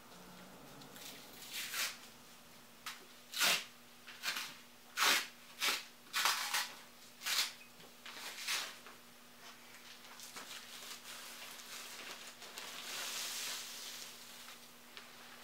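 Rustling of a soft white protective sheet being slid off a flat-panel display's screen: a string of short swishes, then a longer, steadier rustle a couple of seconds before the end.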